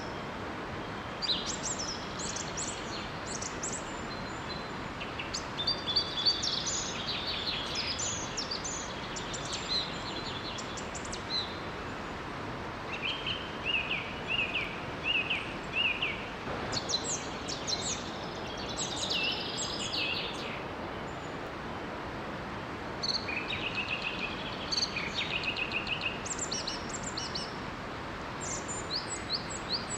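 Several birds singing and chirping in short phrases, some a quick series of repeated notes, over a steady rush of running water from a small waterfall.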